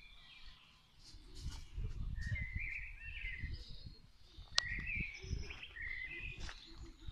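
Small songbirds singing in short warbling phrases, over a low, uneven rumble, with one sharp click about four and a half seconds in.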